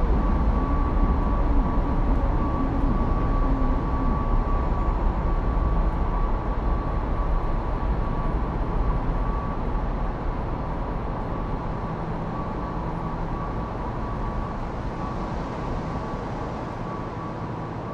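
Low, steady rumbling ambience with a thin constant high tone above it, slowly fading away; a faint wavering tone sits in it for the first few seconds.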